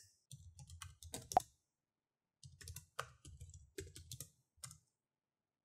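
Quick clicks of typing on a smartphone's on-screen keyboard, in two runs with a pause of about a second between them.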